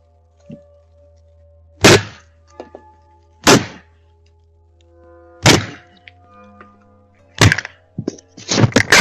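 Heavy thuds: four single blows about two seconds apart, then a quick flurry of blows near the end.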